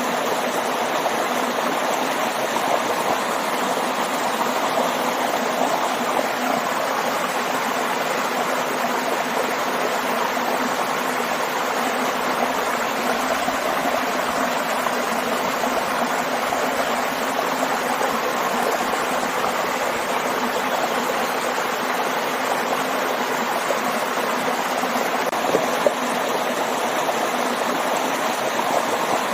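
Waterfall and stream: a steady, unbroken rush of flowing and falling water.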